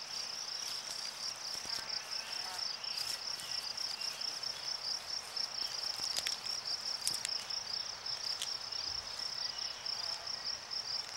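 Insects trilling: a steady, high, pulsing chirr that goes on without a break, with a few faint clicks over it.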